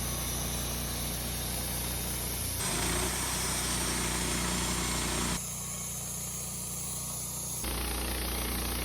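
An engine running steadily at idle, its tone shifting abruptly a few times, about two and a half, five and a half and seven and a half seconds in.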